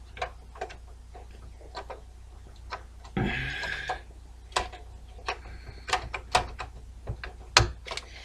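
Scattered clicks and knocks of a graphics card and its metal bracket being handled and pushed into a desktop computer's expansion slot, with a brief scrape a little past three seconds in.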